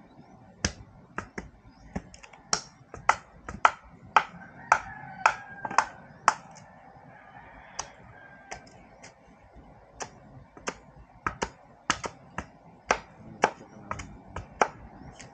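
Machete blows chopping and shaping a stick: sharp, irregular knocks, roughly two a second, some in quick pairs. A rooster crows faintly about halfway through.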